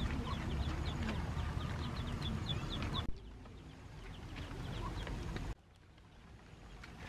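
Chickens clucking, with many short high chirps repeating over a low background rumble; the sound drops away abruptly about three seconds in and again after five seconds.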